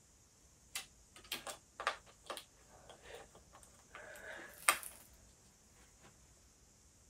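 An SSD in its drive caddy being slid into an HP ProBook 450 G2 laptop's drive bay: a run of small clicks and knocks, a short scrape, and one sharper click a little under five seconds in as it seats.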